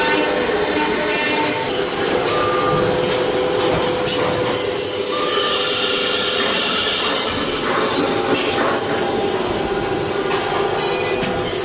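CNC router's HSD air-cooled spindle cutting wood: a steady, high-pitched machining whine over the noise of the cut.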